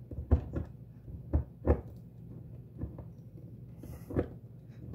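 Gearwrench spring-loaded impact screwdriver pushed down by hand on a drywall screw: about half a dozen soft knocks from the driver's mechanism and the bit seating in the screw head, irregularly spaced, over a low steady hum.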